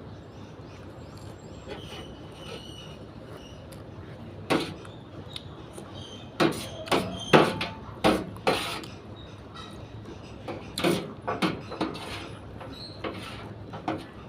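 Close-up eating sounds: a run of crisp crunching bites of raw vegetables, irregular and loudest in the middle, after a few quiet seconds.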